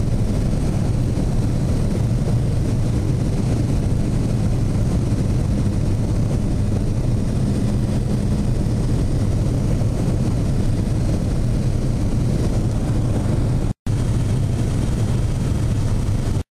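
Steady drone of a light aircraft's engine and propeller in flight, heard from inside the cabin. A split-second gap comes about three-quarters of the way through, and the sound cuts off abruptly just before the end.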